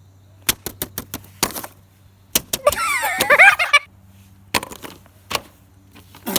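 A run of sharp clicks from the silicone buttons of a simple dimple fidget toy being pushed, then a brief high voice sliding up and down in pitch, then a few more clicks.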